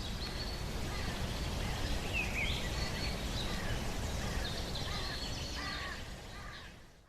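Birds chirping and calling, many short calls over a steady outdoor background hiss and low rumble, fading out near the end.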